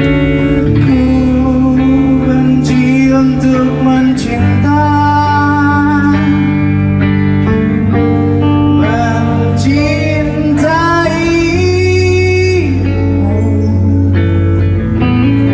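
Live rock band playing a song, with a sung vocal melody over guitar, bass and steady chords.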